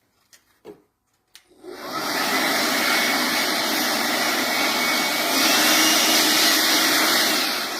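A few light clicks, then an electric air blower starts about a second and a half in and runs steadily as it blows dust out of a fire alarm detector removed from its base for cleaning. It dies away near the end.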